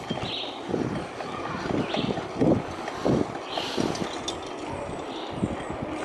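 Bicycle rolling over interlocking concrete paving blocks, rattling with irregular bumps and jolts.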